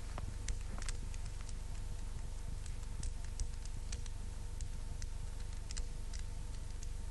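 Steady low hum with two faint steady tones, broken by sparse, irregular sharp clicks and crackles.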